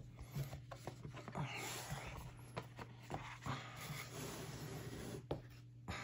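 Thick board-game cardboard pieces being handled and slotted together: faint rubbing and scraping with scattered light taps and clicks, over a low steady hum.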